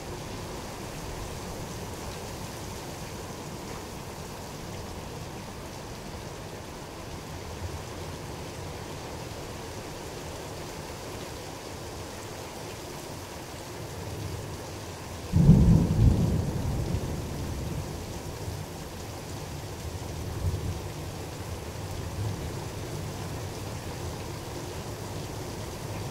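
Steady rain, then a sudden clap of thunder a little past the halfway mark. Its low rumble dies away over the next few seconds, with a few weaker rumbles after.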